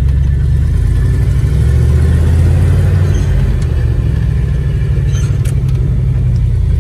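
1971 GMC dump truck's engine running on the move, heard from inside the cab: a steady low drone that swells about two seconds in and eases off a couple of seconds later while the manual gearbox is being shifted, with a few light clicks near the end.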